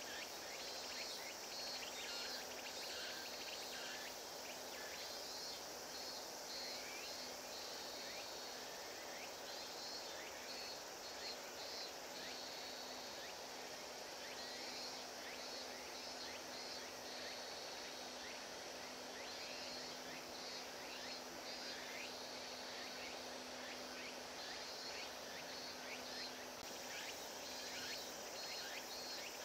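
Faint outdoor ambience of insects calling in repeated pulsed bursts, with short chirps and a steady low hum underneath.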